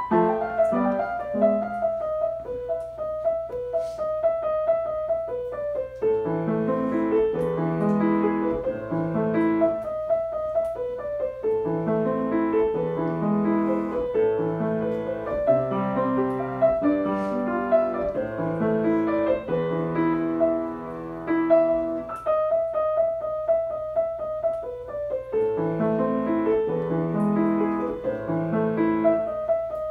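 Solo piano piece played on a baby grand piano, with a repeating melody in the upper-middle range. A fuller low accompaniment enters a few seconds in, thins out for a few seconds about two-thirds of the way through, then returns.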